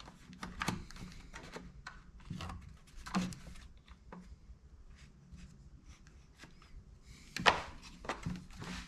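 Scattered light knocks and clicks of tools and chainsaw parts being handled during disassembly, at irregular intervals with the loudest about three seconds in and again near the end.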